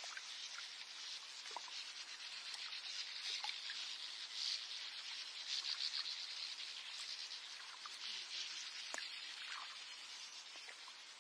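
Morning lakeside nature ambience: a steady high chorus of insects and birds, with many short chirps scattered through it.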